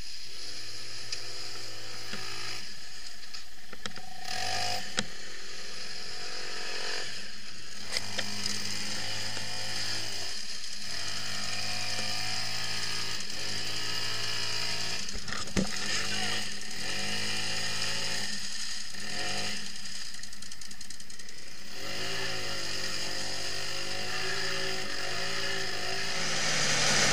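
Off-road buggy's engine revving up and dropping back again and again as the buggy, bogged in a mud hole, tries to pull free, with a few sharp knocks.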